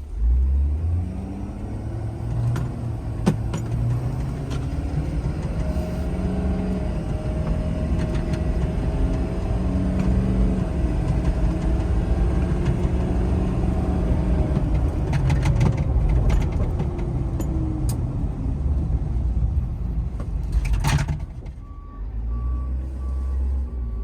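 Ford 6.7-litre diesel engine of a service truck running. A whine rises and then falls in the middle, with a few clicks. A short burst of hiss comes near the end, just before a steady electronic beeping starts.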